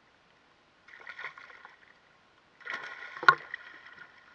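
Water splashing and sloshing around a wading angler's legs as a hooked fish thrashes at the surface, the sound cutting out briefly at the start and again just before the middle. A single sharp knock about three seconds in is the loudest sound.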